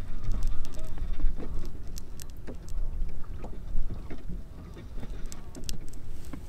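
Wind rumbling on the microphone, with scattered light clicks and knocks of a hand-held landing net, lure and fish being worked loose from a tangle.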